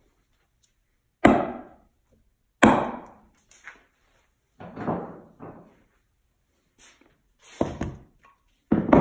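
Heavy chunks of steel bar set down one by one as weights on a plywood mold: about five separate knocks spread over the seconds, the first two the loudest.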